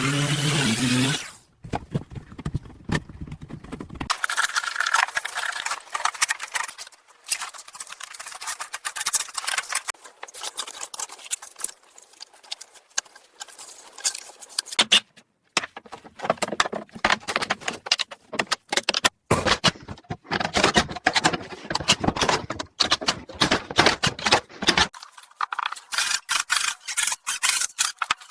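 Building work: dense runs of clicks, knocks, scrapes and rattles from tools and materials, in short sections that change abruptly every few seconds.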